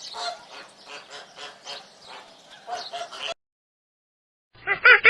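A dense chatter of many short bird calls, cutting off abruptly after about three seconds. After a second of silence, loud, repeated honking calls begin near the end.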